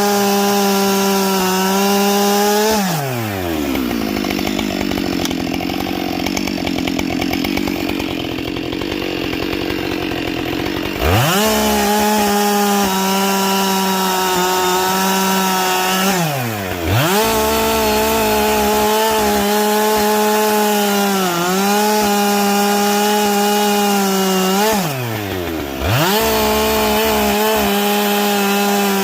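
Husqvarna 572XP two-stroke chainsaw with a carbide chain, run at high steady revs on wood. About three seconds in the throttle is let off and it drops to idle for around eight seconds, then it is revved back up, with short dips in revs and quick recoveries, twice deeply and once lightly.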